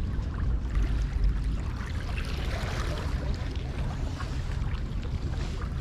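Wind rumbling on the microphone over a steady wash of seawater.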